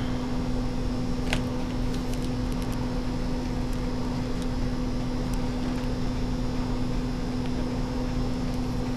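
Steady room hum with a low tone, and a few faint clicks and taps of the laptop's plastic lid and screen panel being handled, the clearest about a second and a half in.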